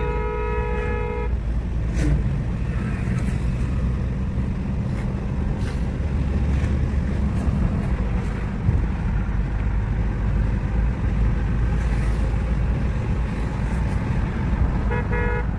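Vehicle running on the road with a steady low engine and road rumble; a car horn sounds for about a second at the start and again briefly near the end.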